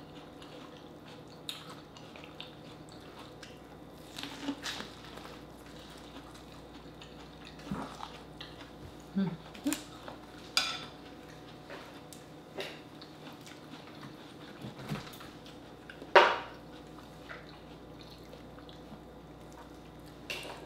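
Eating at a table: scattered short clicks and clinks of mussel shells and dishes being handled, between quiet mouth sounds. One sharper clink about 16 seconds in is the loudest.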